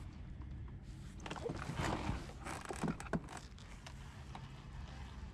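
Baitcasting reel being wound in, with irregular clicks and knocks from the rod and reel handled aboard a fishing kayak, busiest in the first half.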